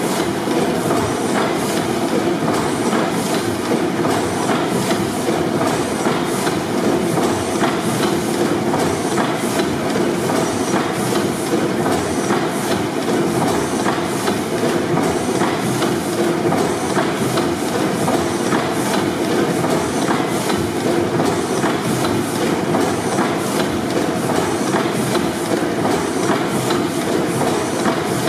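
600 HP Snow pipeline compressor engine, a large four-stroke double-acting gas engine with two double-ended cylinders, running steadily with an even, rhythmic mechanical clatter.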